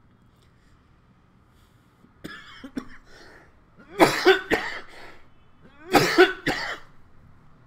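A man coughing: a lighter cough or throat-clearing a little after two seconds in, then two harder fits of several coughs each, about four and six seconds in.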